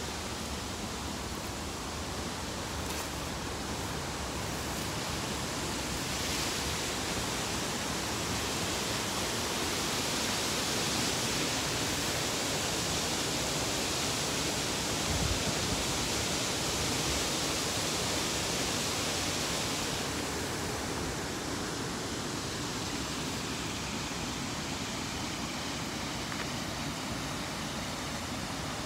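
River water rushing over shallow rapids: a steady, even hiss that grows brighter and slightly louder from about six seconds in until about twenty seconds in.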